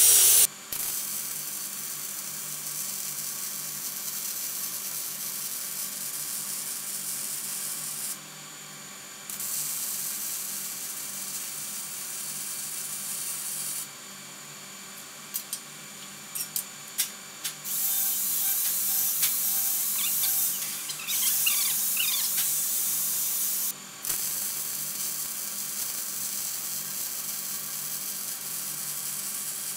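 An angle grinder cuts off in the first half second. Then a MIG welding arc runs on the cap pass of a 4-inch heavy-wall steel pipe, short-circuit transfer on .030 ER70S-6 wire at about 17 volts under C25 gas, as a steady hiss. It comes in several runs of a few seconds broken by short pauses, with a few brief arc strikes near the middle.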